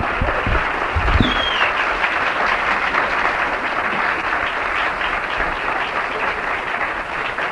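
Audience applauding at the end of a song, heard on a worn two-track reel-to-reel tape recording. A short falling whistle cuts through the clapping about a second in.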